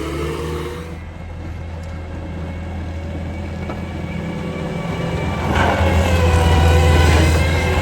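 Cat 289 compact track loader's diesel engine running under load while pushing snow with a plow pusher. It revs up and gets louder about five and a half seconds in.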